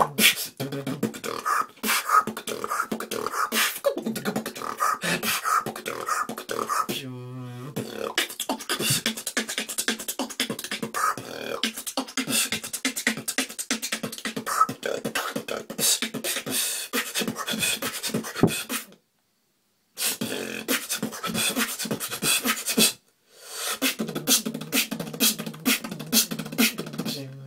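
Solo freestyle beatboxing: fast mouth-made kick, snare and hi-hat patterns, with a short pitched bass tone about seven seconds in. The sound cuts out to silence twice, briefly, about two-thirds of the way through.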